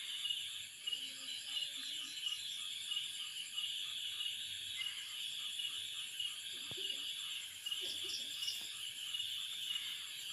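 High-pitched insect chorus shrilling steadily, swelling and easing in roughly one-second pulses.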